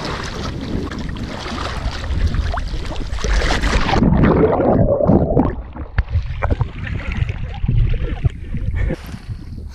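Lake water splashing and sloshing around a swimmer's action camera. About four seconds in, the sound turns suddenly muffled and bubbling as the camera goes under water, then scattered splashes as it breaks the surface again with the swimming strokes.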